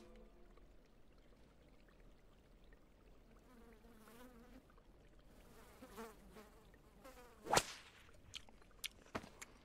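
A housefly buzzing in short wavering passes, then one sharp whip-like snap about seven and a half seconds in, the frog's tongue lashing out at the fly, followed by a few faint clicks.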